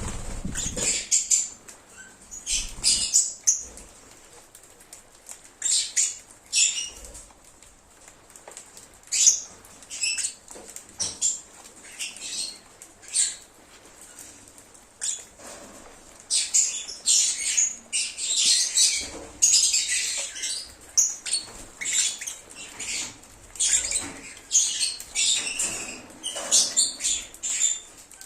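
Lovebirds (Agapornis) chirping and twittering in short, high-pitched calls that come in irregular clusters, sparse at first and busier and overlapping in the second half.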